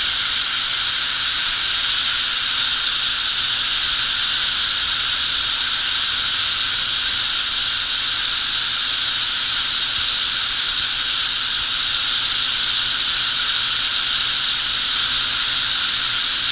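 Steam blowing off from a steamship's boilers through the funnel escape pipes: a loud, steady hiss with a high squealing edge, the sign of boilers venting excess pressure with the engines stopped. It cuts off suddenly at the end.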